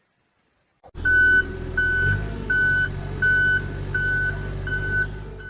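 About a second in, regular electronic beeping starts, one beep about every three-quarters of a second, over a steady low engine-like hum.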